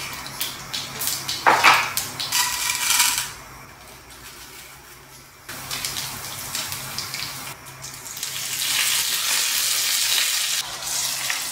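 Tempering spices sizzling in hot oil in a small pan: mustard seeds, chana and urad dal, a dried red chilli and curry leaves crackling, with scattered pops. The sizzle drops for a couple of seconds mid-way and is strongest near the end, when the curry leaves are in and a spoon stirs the pan.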